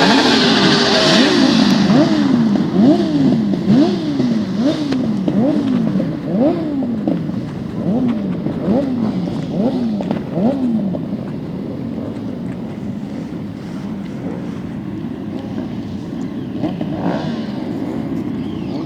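Off-road motorcycle engines revving hard, the pitch climbing and then dropping sharply over and over as the riders shift gears or come off the throttle. The revving fades after about ten seconds into a quieter, steadier engine drone.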